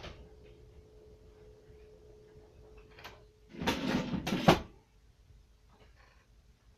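A door being shut: about a second of loud scraping, rustling noise about halfway through, ending in a sharp knock.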